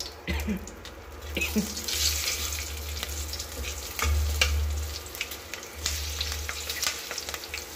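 Cumin, dried red chillies, a bay leaf and green chillies sizzling in hot oil in a steel kadai, with a steel spatula clicking and scraping as it stirs. The sizzle swells about a second and a half in, and a low hum comes and goes underneath.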